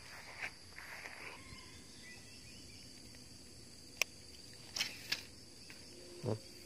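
Insects chirring steadily at a high pitch, with a few sharp handling clicks a little past the middle and a dull knock near the end.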